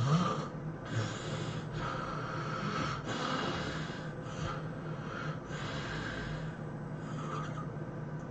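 A person snoring heavily: a string of harsh, rasping breaths, each half a second to a second long, with a loud snort right at the start.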